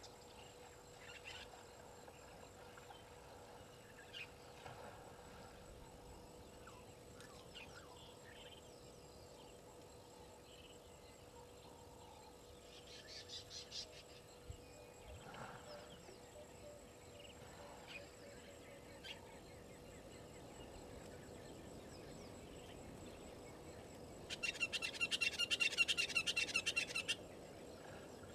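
Outdoor bush ambience at a waterhole: scattered short bird calls, a brief rattling burst about halfway through, then a loud, rapid rattling trill lasting about three seconds near the end.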